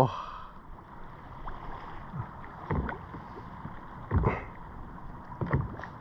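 Choppy sea lapping against a kayak's hull with steady wind, and a few brief soft knocks or slaps, about four in all.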